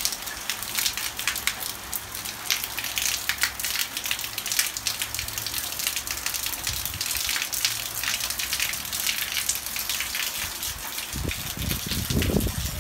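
Heavy rain mixed with small hail, a dense steady patter of drops striking the ground and plants. A few low thumps near the end.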